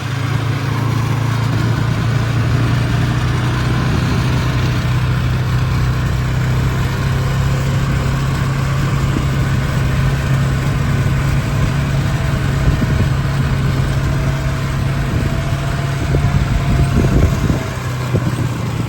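A vehicle engine running steadily at constant speed, a low even drone that grows a little louder and rougher shortly before the end, then eases off.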